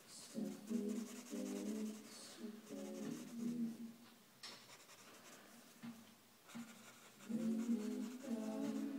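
Pencil scratching and rubbing on sketchbook paper as a face is sketched. Muffled background voices come and go in two spells, louder than the pencil.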